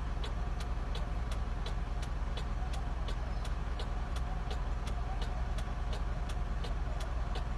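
A vehicle engine idling with a steady low rumble, and an even ticking about three times a second over it.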